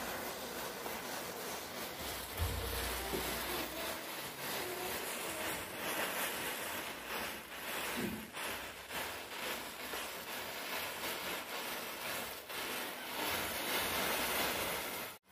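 Match chain reaction burning: rows of safety-match heads flaring one after another, giving a continuous hiss with fine crackles. The sound drops out for an instant near the end.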